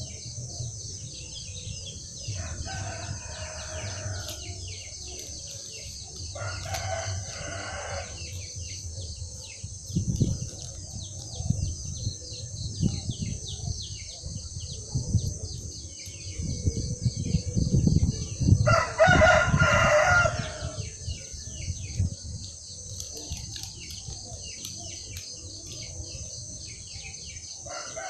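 A rooster crowing four times, each crow lasting one to two seconds, the loudest about two-thirds of the way through and the last cut off at the end. A steady high buzz runs underneath, with low rumbles in the middle.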